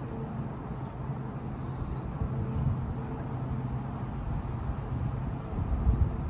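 Outdoor background of a steady low hum, with several short, high, falling bird chirps spaced about a second apart. A low rumble swells near the end.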